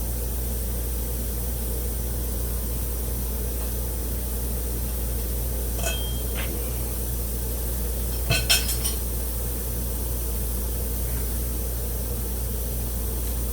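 A few sharp metal clicks and clinks as a valve spring retainer is pried and worked off a Chevy 307 small-block's valve spring: a couple about six seconds in and a quick cluster just past eight seconds, over a steady low hum.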